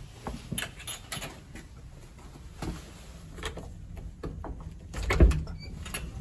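Scattered knocks and clicks at an uneven pace, with a heavy thump about five seconds in.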